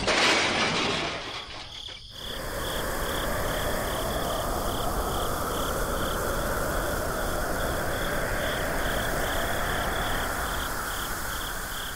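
Insects chirping in an even, rapid pulse, a few pulses a second, over a steady hiss. The chirping cuts in suddenly about two seconds in, as a louder sound fades.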